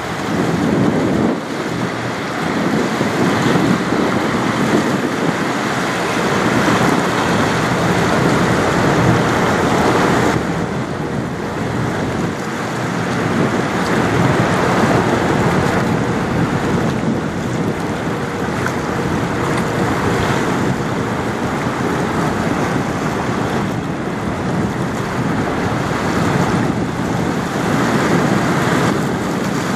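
Steady rush of water from a passing bulk carrier's bow wave and wash along its hull, with wind noise on the microphone.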